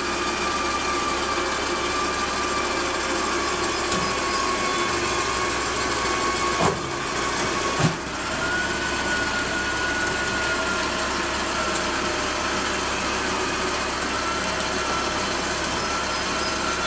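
Yale propane forklift's engine running steadily, with a thin whine over it that rises slightly in pitch about halfway through. Two sharp metallic clunks come about a second apart near the middle.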